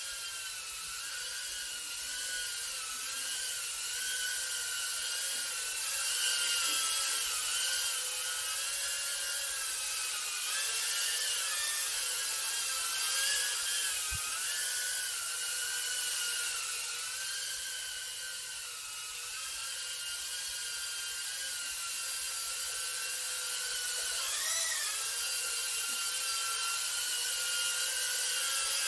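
Small FPV drone flying indoors, its motors and propellers giving a high whine that wavers in pitch as the throttle changes, with a brief sharp rise and fall about three-quarters of the way through.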